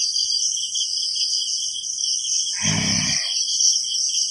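Night insects, crickets, chirring steadily in several high-pitched bands. About three seconds in, a short, low human vocal sound breaks in briefly.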